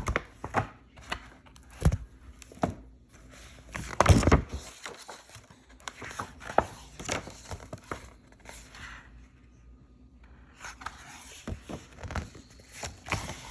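Paper and a picture book being handled: rustling and crinkling with scattered taps and knocks, the loudest a cluster about four seconds in.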